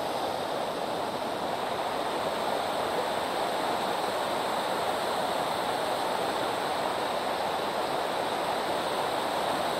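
Collins Creek waterfall pouring and splashing in a steady, unbroken rush of water.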